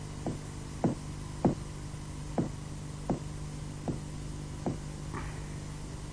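Footsteps, about seven unevenly spaced steps, one every two-thirds of a second or so, over a steady low hum, then a faint brief rustle near the end.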